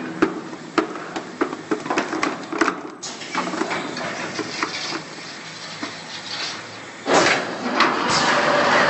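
Cardboard-tube cutting machine at work: a run of sharp mechanical clicks and knocks, sparser for a few seconds, then a loud noisy running sound that starts suddenly about seven seconds in.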